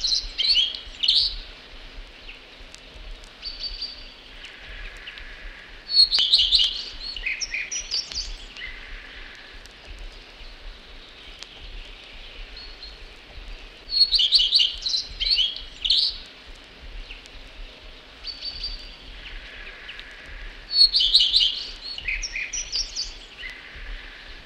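Common redstart singing: short, high, twittering song phrases of about two seconds, repeated roughly every seven seconds, with softer notes between them.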